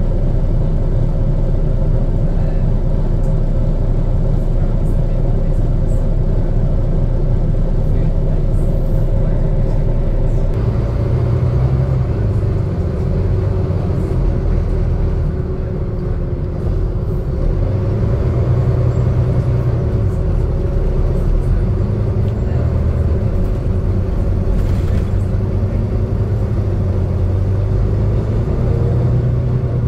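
Inside a Volvo B9TL double-decker bus on the move: steady engine and road rumble. About ten seconds in, the deepest steady hum gives way to a more uneven low engine note.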